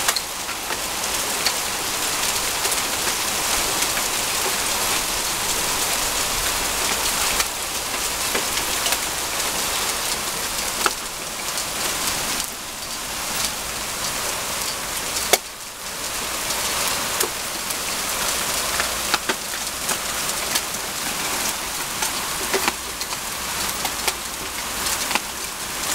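Hailstorm: hailstones pelting wet paving and grass in a dense, steady hiss, with many sharp individual clicks of stones striking the ground.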